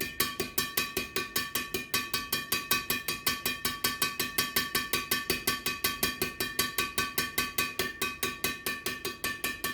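Badminton racket strings (RS Blade 66 at 27 lbs in a Powermax Power Shot 700) being struck in a rapid, even run of about six or seven hits a second. Each hit gives a sharp ping, over a steady ringing pitch from the strings.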